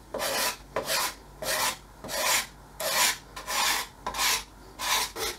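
Card scraper drawn in short repeated strokes along the wooden body of a 1908 Stanley Sweetheart No. 5 level, about two scrapes a second, taking back the dirty surface.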